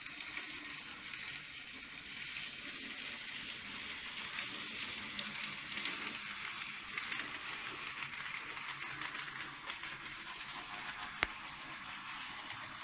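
N gauge model train running along the track: a steady whirring rattle of the small motor and wheels on rail, building up over the first second. About eleven seconds in there is one sharp click.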